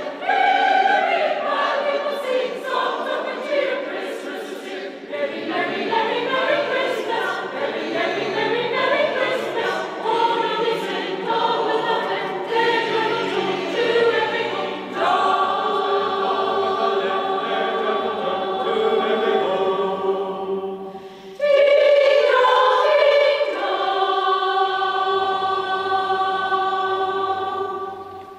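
Choir singing a carol in harmony. The closing phrases are held as long sustained chords, and the last chord dies away just at the end.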